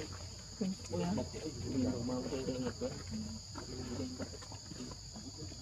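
Steady, high insect drone from a chorus of crickets or similar insects, with indistinct voices coming and going beneath it.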